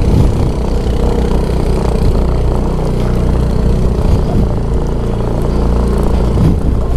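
Motorcycle engine running at low speed, its pitch rising and falling with the throttle, with a quick rise just after the start and another near the end.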